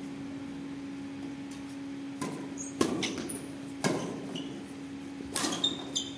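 Badminton rackets striking the shuttlecock in a doubles rally: about five sharp hits spaced roughly half a second to a second apart, with brief high squeaks of shoes on the court floor. A steady low hum runs underneath.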